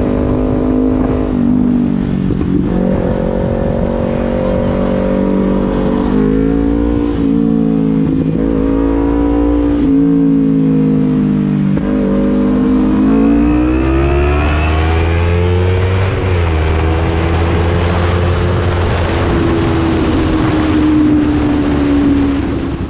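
Kawasaki Ninja 300 parallel-twin engine under way, revving up and shifting so its pitch climbs and drops several times. In the second half it makes a long climb and then holds a steady high pitch.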